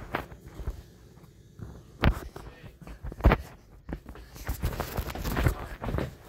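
Footsteps on a hard floor, with irregular knocks and rubbing from a handheld phone being carried while walking; the loudest knocks come about two and three seconds in.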